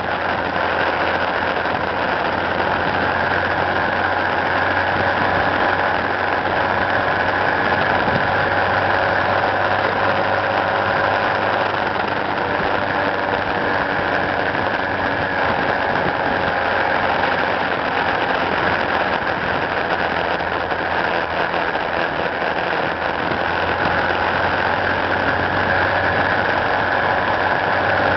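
A motor vehicle's engine running steadily with road noise as the vehicle drives along, the level and pitch unchanging throughout.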